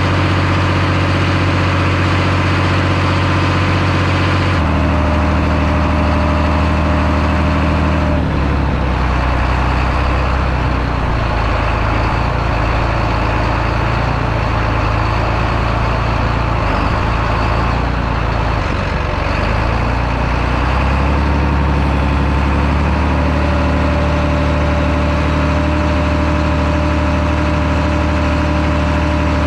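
Tractor's diesel engine running steadily under load, its engine note shifting a few times: about four seconds in, around eight seconds, and again around twenty-one seconds.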